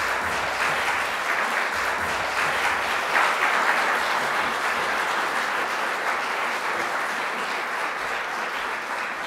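Audience applauding in a hall, a steady dense clapping that slowly dies down toward the end.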